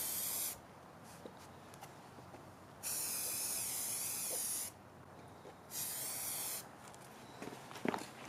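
Aerosol spray can of high-temperature primer spraying in three hissing bursts with short pauses between, the first ending about half a second in and the last shorter. A short sharp tap comes near the end.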